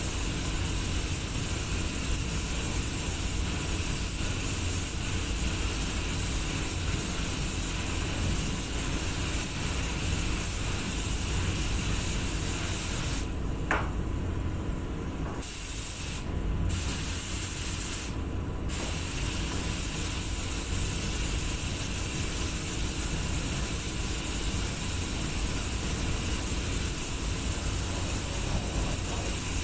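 Compressed-air paint spray gun hissing steadily as car paint is sprayed, over a steady low rumble. The hiss cuts out for about two seconds around the middle, then twice more briefly, when the trigger is released.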